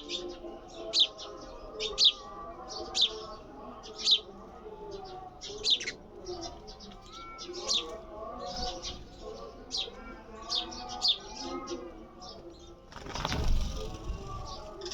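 Sparrow chirping: short, sharp, high chirps, about one a second at first, then more irregular and closer together. A brief rushing noise about 13 seconds in.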